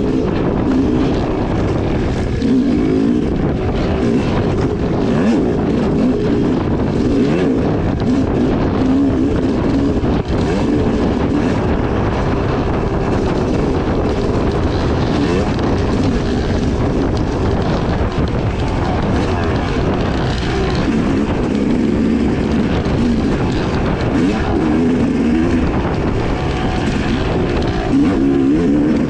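2016 Yamaha YZ250X two-stroke dirt bike engine running hard, its revs rising and falling constantly as it is ridden, with short knocks and clatter throughout.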